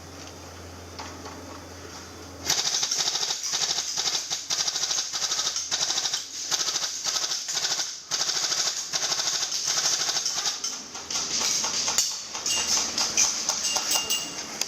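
Electric airsoft gun, a Tokyo Marui Steyr HC, firing on full auto: long bursts of a fast rattle with short breaks between them, starting a couple of seconds in.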